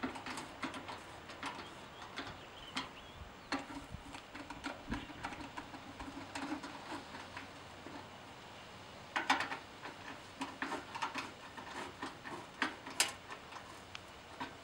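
Hand screwdriver working the screws out of the sheet-metal top of a Carrier condenser unit: scattered small metallic clicks and scrapes, with a burst of clicks about nine seconds in and a sharper click near thirteen seconds.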